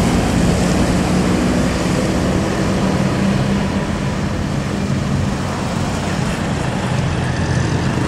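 A coach's diesel engine running steadily as it passes close by, mixed with the engines of other passing traffic. No horn sounds.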